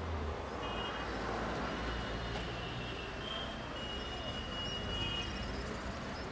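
Street traffic ambience: a steady low vehicle rumble and hiss, with several long, high-pitched tones sounding on top of it, each up to a second or so.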